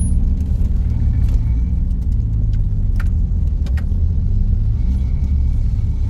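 Tuned Toyota Supra's engine idling with a steady low rumble, heard from inside the cabin, with a couple of light clicks about halfway through.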